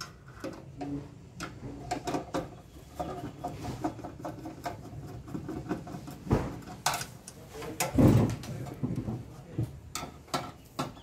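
Irregular clicks and knocks of a screwdriver and loose metal parts against a gas water heater's burner assembly and sheet-metal chassis while its screws are being worked, with two louder thumps about six and eight seconds in.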